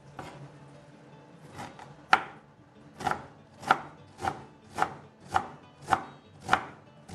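Kitchen knife cutting through a halved onion into a wooden cutting board while dicing it: a series of sharp chopping knocks, sparse at first and then steady about twice a second.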